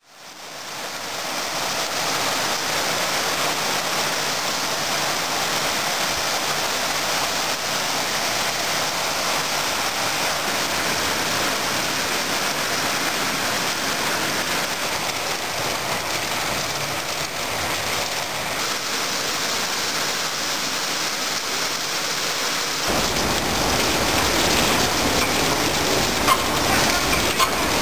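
Steady heavy rain falling on trees and leaves, fading in at the start. About 23 s in the sound grows fuller and lower as rainwater pours off a clay roof tile and splashes into water below.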